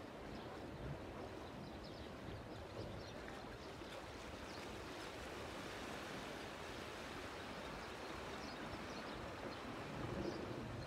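Steady wash of river water with small irregular ticks and splashes.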